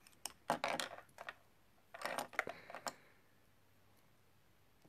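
Clicks and light clatter of small cosmetic items, such as brushes and compacts, being handled, in a few short bursts over the first three seconds.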